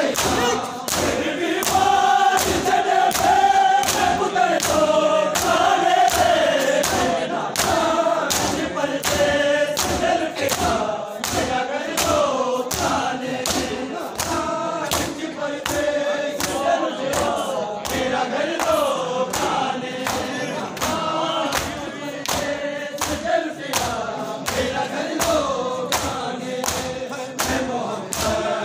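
A crowd of men chanting a mourning lament in unison, over steady rhythmic slaps of hands on bare chests (matam) falling a little more than once a second.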